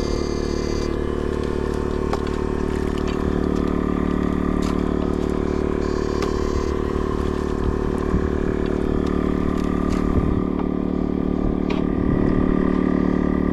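A steady mechanical drone, a stack of unchanging tones, with a few faint knocks and scrapes over it.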